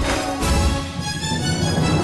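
Background music with sustained notes and a strong bass line, with a loud accented hit about half a second in.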